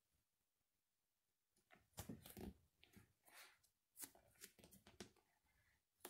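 Bare feet pressing on and crushing slices of soft white bread, giving a run of faint crackles and soft rustling scrapes that begins about one and a half seconds in, with a sharper crackle near the end.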